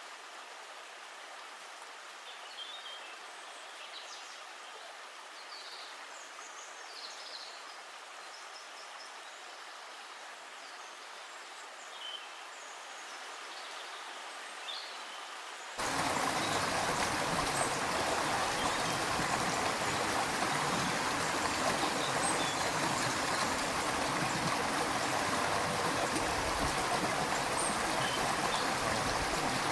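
Stream water flowing steadily, with a few faint bird chirps over it. About halfway through it cuts abruptly to a louder, fuller rush of running water.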